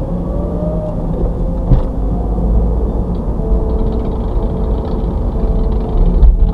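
Car engine and road rumble heard from inside the cabin as the car pulls away and speeds up, with a sharp click just under two seconds in.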